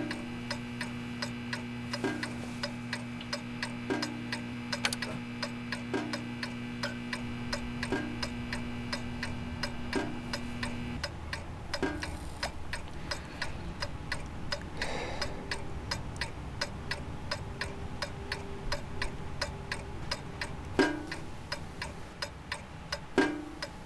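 A clock ticking steadily, with louder single drips from a brass tap falling into a metal pot about every two seconds, then more sparsely. A low steady hum cuts off about eleven seconds in.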